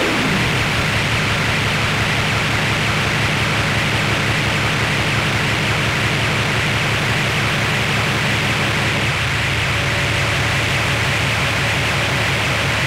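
Loud, steady static hiss over a low, rapidly throbbing drone: harsh electronic noise from the soundtrack. A faint high tone joins near the end.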